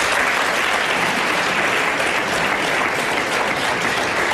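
Studio audience applauding, a dense, even clapping at a steady level.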